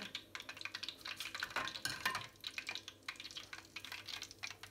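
Cookie batter on a metal mould frying in hot fat in an enamel pot, a dense crackling sizzle.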